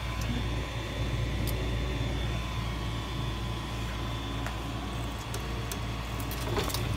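Creality CR-10S Pro 3D printer running as it resumes a print: a steady hum of its fans and stepper motors with a thin steady whine and a few faint ticks. The owner calls the sound horrible, a sign the resumed print is going wrong.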